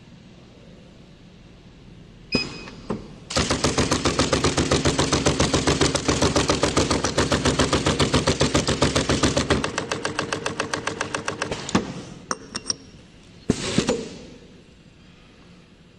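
Automatic flap disc making machine setting abrasive flaps into its round fixture one after another: a fast, even run of mechanical clacks over a motor hum for about eight seconds. A few separate sharp metallic clacks follow near the end.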